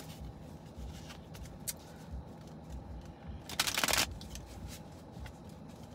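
A tarot deck being shuffled by hand: light repeated card taps and rustles, with a brief louder flurry of card noise about three and a half seconds in.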